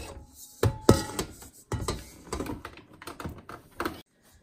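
Knocks and clunks of a stainless steel stand-mixer bowl being taken off the mixer and handled, an irregular run of hard taps with the loudest about a second in.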